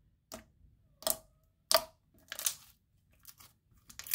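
Thick slime squished and pressed by hand against a tabletop: a string of short sticky crackles and squelches, about half a dozen, unevenly spaced, the sharpest a little under two seconds in.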